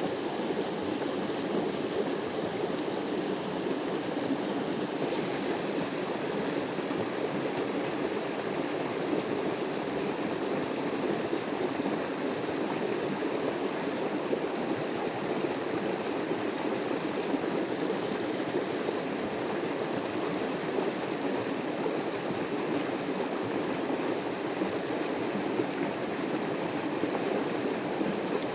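Flowing river water, a steady unbroken rush.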